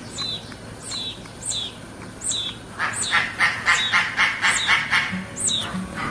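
Bird calls: short, high chirps that slide downward, repeated about twice a second, with a quicker chattering run of about six calls a second in the middle.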